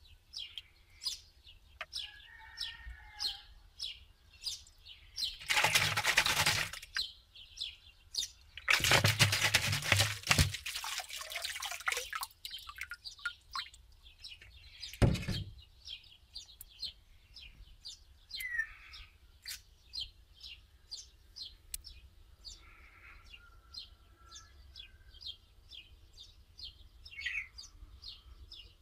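Water splashing and sloshing in loud bursts: one about five seconds in, a longer one of about three seconds around nine seconds in, and a short heavy splash at fifteen seconds. Under these runs a steady series of short, high chirps, a few each second.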